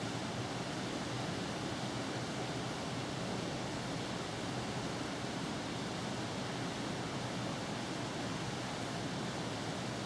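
Steady, even hiss of background room noise with a faint, thin, high steady tone running through it.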